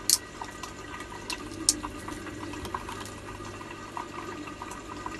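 Cooked crab shell being pried apart by hand: a sharp crack right at the start and another a little under two seconds in, with smaller clicks of shell between. Under it runs a steady trickle of water from an aquarium filter.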